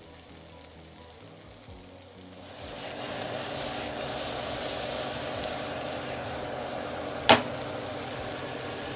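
Fried tilapia, onions and capsicum sizzling in a non-stick frying pan as they are stirred together. The sizzle comes up about two and a half seconds in and then holds steady, with one sharp knock about seven seconds in.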